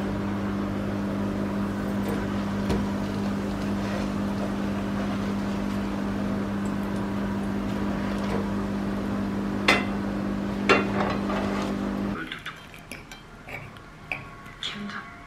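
A steady electrical hum from an appliance, which cuts off suddenly about twelve seconds in. Two clinks of crockery come shortly before it stops.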